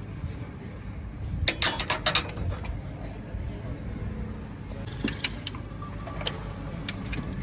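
Metallic clinking and jingling over a steady low rumble: a quick cluster of clinks about a second and a half in, then a few single clinks later.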